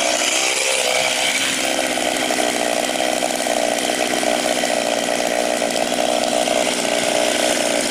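Chainsaw engine idling steadily.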